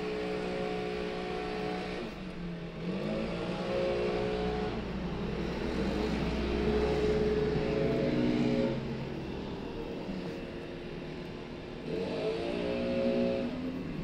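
Leaf blower running with its speed changing: the pitch climbs about three seconds in, holds, eases off around nine seconds, and climbs again near twelve seconds.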